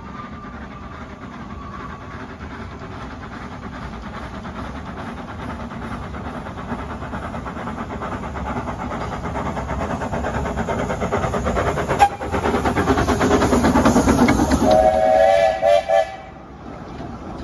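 Steam locomotive approaching and passing while working hard, its rapid exhaust beats growing steadily louder. About fifteen seconds in it sounds a few short blasts on its whistle, then the sound drops away suddenly.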